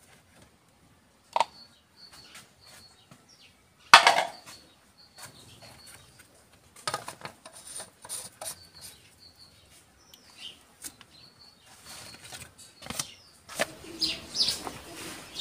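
Scattered clicks and knocks of hands handling parts and glass in a car's engine bay, with one loud, briefly ringing clink about four seconds in. Short bird chirps come and go in the background.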